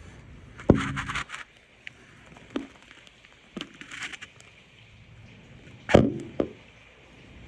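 Two sharp knocks about five seconds apart, each with a brief noisy tail, and a few fainter clicks between them, over a steady background hiss.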